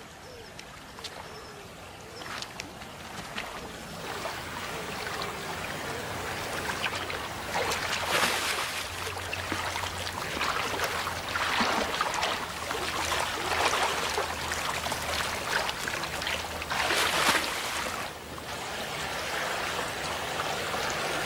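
Shallow river water running over stones and splashing as a brown bear wades through it, with several louder spells of splashing in the middle and later part.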